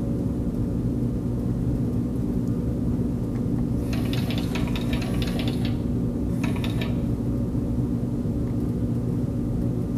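Roco HO digital passenger coaches' built-in door sound: two noisy mechanical bursts as the remote-controlled doors open, one about four seconds in lasting under two seconds and a shorter one about a second later. Under them runs a steady low hum.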